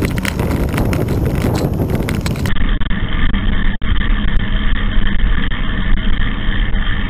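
Wind buffeting the microphone of a camera on a moving road bicycle, a loud steady rush with rumble. About two and a half seconds in, the sound cuts abruptly to a duller, muffled steady rush.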